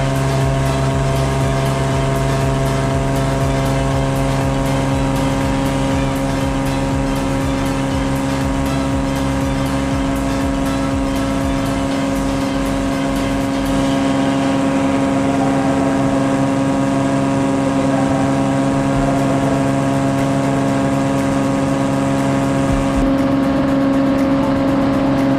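Cessna 185 floatplane's six-cylinder engine and propeller running at takeoff power, a loud, steady drone with a strong low hum, during the takeoff run on the water.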